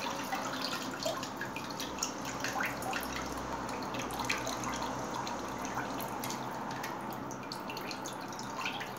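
Water dripping and trickling from a raised steel colander of flour-coated chicken wings back into the basin below, a steady patter of many small drips as the wings drain after their soak in water.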